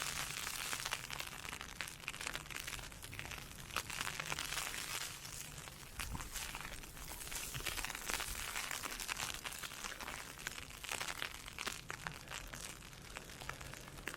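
Ice pellets pelting an umbrella in a dense, steady crackle of small ticks, with a hiss of wind-driven sleet behind it.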